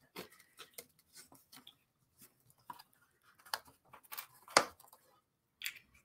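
Thin wooden puzzle pieces clicking and tapping as they are picked up and handled, an irregular scatter of light clicks with a sharper knock about four and a half seconds in.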